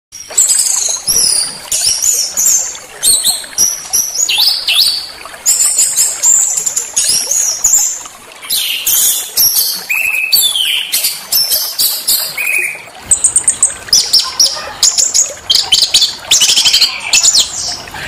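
Small songbirds chirping and whistling in quick, high-pitched bursts of short notes, some sliding in pitch. About thirteen seconds in, a faster rattling trill takes over.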